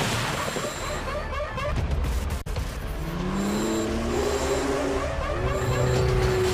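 A high-performance car engine revving hard under full-throttle acceleration, its pitch climbing for about two and a half seconds and then holding steady. It plays over a low music bed.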